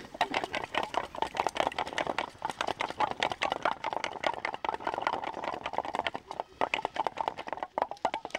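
Raw eggs being beaten by hand in a small metal bowl: a rapid, steady clicking and tapping of the utensil against the bowl.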